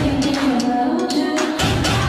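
Pop song playing: a sung melody over a drum beat.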